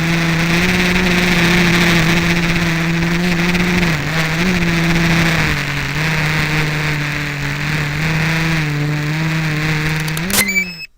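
GAUI 330X quadcopter's electric motors and propellers running with a steady hum, the pitch shifting slightly a few times with throttle. Near the end the pitch rises briefly and then the sound cuts off sharply.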